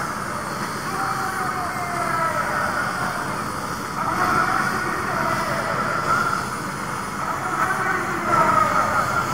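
Helicopter's turbine engine and rotor running while it stands on the ground, mixed with the shouting of a large crowd.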